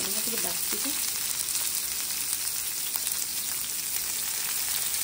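Chopped onions, cumin seeds and green chillies sizzling steadily in hot oil in a frying pan.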